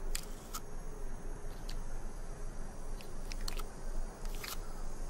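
Desert tortoise biting and chewing a prickly pear cactus pad: a handful of irregular crunches spread over a few seconds.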